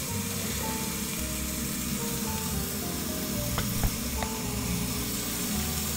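Thin slices of yakiniku meat sizzling steadily as they fry in a pan, with a couple of light clicks a little past the middle. Soft background music of plain held notes plays underneath.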